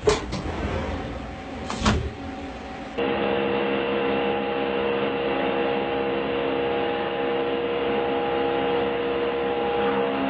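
Metal machining on CNC machines: two sharp knocks over the sound of a lathe turning a metal bar, then, about three seconds in, a milling cutter cutting a metal plate with a steady whine of several held tones.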